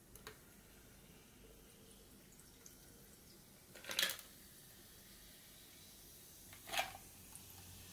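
Carbonated tonic water poured from a can onto ice cubes in a glass: a faint steady pour, with two brief louder sounds about four seconds and about seven seconds in.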